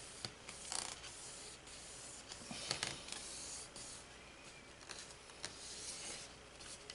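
Fingers rubbing a freshly applied decal smooth onto a model rocket's body tube: faint rubbing and brushing with a few soft clicks.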